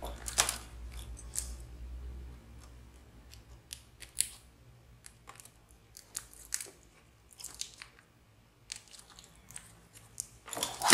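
Scattered small clicks and crinkly handling sounds as hands move a laptop LCD panel, lifted out of its lid, and work at its display cable.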